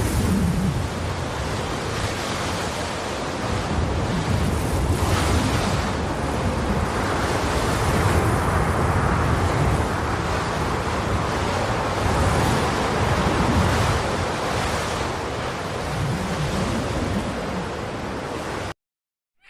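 Rushing noise like surf and wind, swelling and ebbing with a low rumble underneath. It cuts off suddenly near the end.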